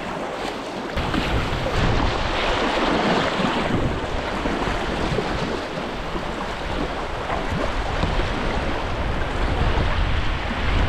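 Rushing white water of a river rapid close around a whitewater kayak, with paddle strokes splashing in the current. Wind buffets the microphone with a low rumble from about a second in.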